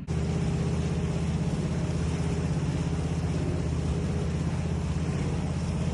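Off-road 4x4's engine running loudly at steady revs. It cuts in abruptly and stops just as suddenly near the end.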